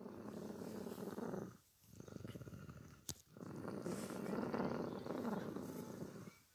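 Man snoring in his sleep: three long snoring breaths with short gaps between them, the last about three seconds long. A sharp click about halfway through.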